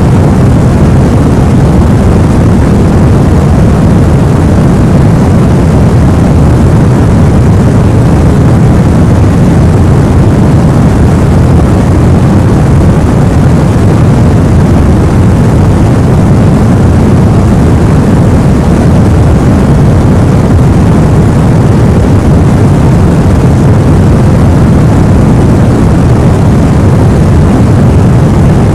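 Steady, unchanging white noise played as a sleep aid for a baby, weighted toward the low end so it sounds like a deep, even hiss with no variation.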